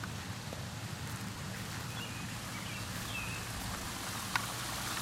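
Steady outdoor hiss with a few faint bird chirps in the middle and a single sharp click near the end.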